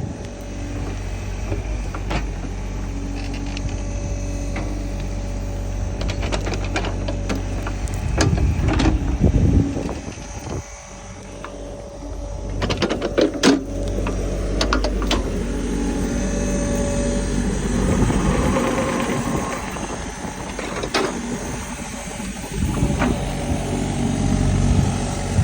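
Excavator's diesel engine running steadily under digging load, dipping for a moment partway through, with scattered clanks and knocks from the bucket and boom.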